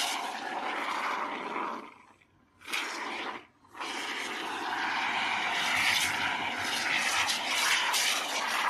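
Aerosol can of expanding polyurethane foam spraying with a steady hiss, stopping briefly twice about two and three and a half seconds in before the spraying resumes.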